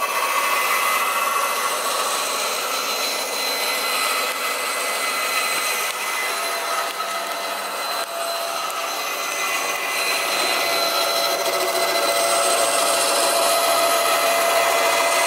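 Benchtop band saw running with a new blade while it cuts through a thin strip of wood. The machine sound is steady, with the hiss of the cut.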